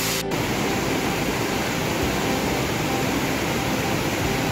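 Steady rushing noise with no clear pitch or rhythm.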